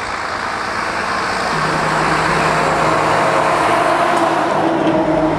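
Steady rushing background noise, like traffic or wind, with a low steady hum that comes in about a second and a half in. The warning siren itself is not yet sounding.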